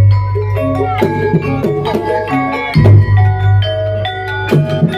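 Banyumasan gamelan playing ebeg (kuda kepang) music: metallophones ring out a string of short melody notes over a deep sustained low tone, with sharp percussion strikes, the loudest about three seconds in.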